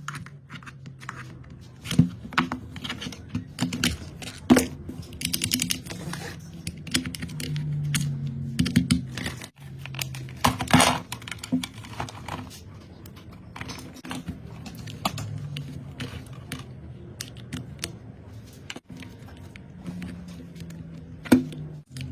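Hands working on a drill's electrical cord: irregular clicks, taps and light crinkling as tools and insulated wire are handled, over a low background hum.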